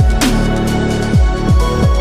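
Electronic background music with a deep, pitch-dropping kick drum hitting steadily and a cymbal crash about a quarter second in.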